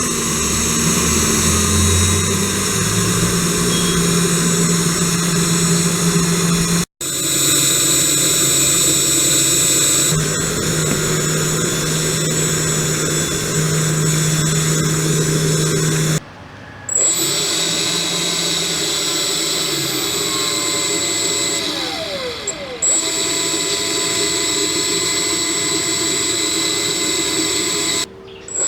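Small high-speed electric motor spinning a fan, running steadily with a continuous whine. The sound breaks off abruptly three times, about 7, 16 and 28 seconds in.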